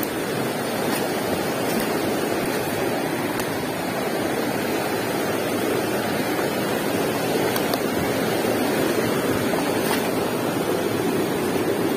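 Fast-flowing river water rushing steadily over rocks and through rapids.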